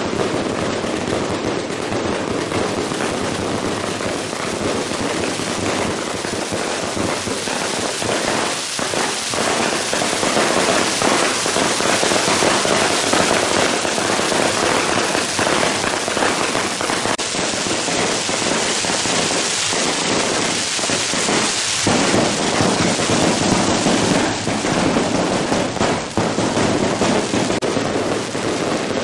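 Long strings of firecrackers going off in an unbroken, loud, rapid crackle of countless small bangs.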